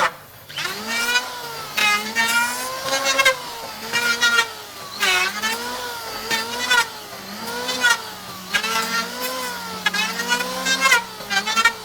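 Power tool motor running, its pitch repeatedly dipping and rising again about once a second, with short bursts of cutting noise each time the pitch drops.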